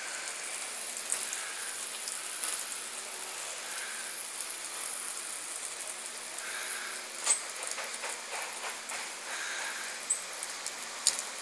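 Pump-up bleach sprayer spraying a half-bleach, half-water mix onto house siding: a steady hissing spray, with a couple of sharp ticks late on.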